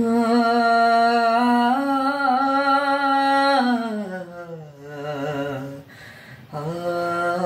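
A boy's voice singing alone without accompaniment, a wordless opening on long held notes. A held note slides down to a lower pitch about four seconds in, the voice nearly breaks off for a moment, then a new note is held.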